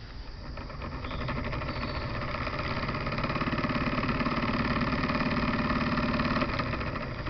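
Electric weed-eater motor converted into a trolling motor, running on its high setting with its propeller spinning in air: a steady whirring hum that builds up over the first few seconds and eases a little near the end. It is powered from a battery that is running low, so the motor is not running as strongly as it should.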